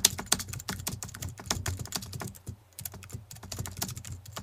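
Typing sound effect: a quick, irregular run of keyboard key clicks, with a short lull about two and a half seconds in.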